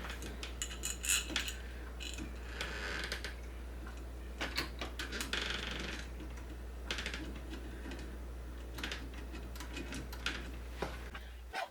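Irregular small metallic clicks and short scrapes as the smart lock's long mounting-plate screws are turned in through the lock, over a steady low hum.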